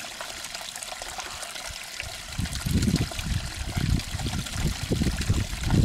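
Steady trickling, water-like hiss, joined about two seconds in by irregular low rumbling gusts.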